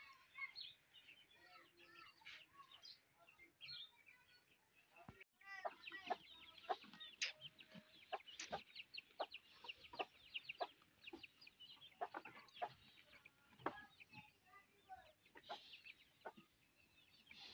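Chickens clucking with small birds chirping, a steady run of short high calls. After about five seconds the calls come thicker and louder.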